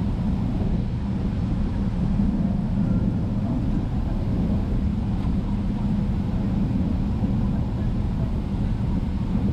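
Cabin noise inside a Boeing 777-300ER: the GE90 engines and airflow as a steady low rumble, unchanging in pitch and level.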